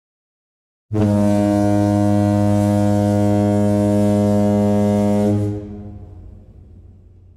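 One long, low, steady horn-like tone, rich in overtones, that starts abruptly about a second in, holds for about four and a half seconds and then fades away.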